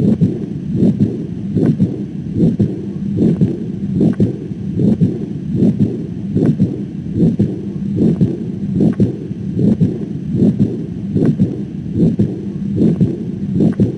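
Human heart sounds heard through a stethoscope: a steady, regular lub-dub, about 75 beats a minute.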